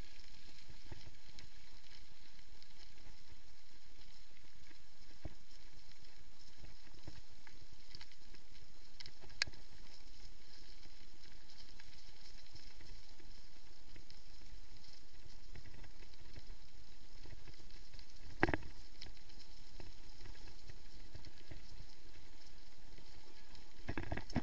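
Mountain bike rolling fast downhill over a loose gravel track: a steady rumble of tyres on gravel with the bike rattling, and a few sharp knocks over bumps, the loudest about 18 seconds in.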